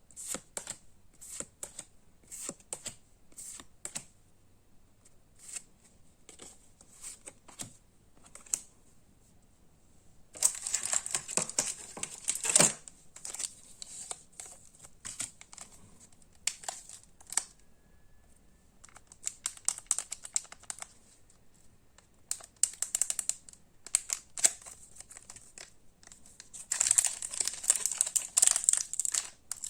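Pokémon trading cards handled one after another, a run of light flicking clicks, with two stretches of crinkling from a foil booster-pack wrapper, the first about ten seconds in and the second near the end.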